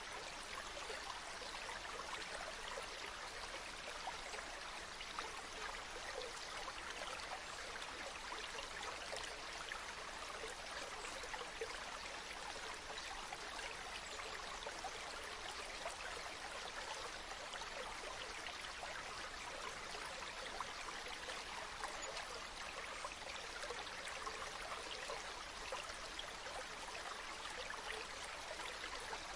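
Water flowing steadily: a continuous rush with fine splashing, even in level, with no swells or breaking surges.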